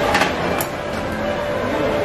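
Background music over the clatter of a busy drink counter, with two short clinks in the first second.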